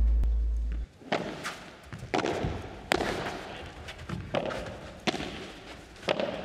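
Padel rally: the ball is struck by solid padel rackets and bounces off the court and glass walls, a string of sharp hits roughly every half second to second, each with a short echo.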